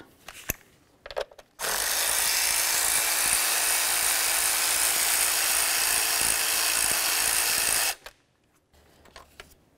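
A cordless electric ratchet runs steadily for about six seconds, spinning out a valve cover bolt, then stops abruptly. A couple of small clicks come just before it starts.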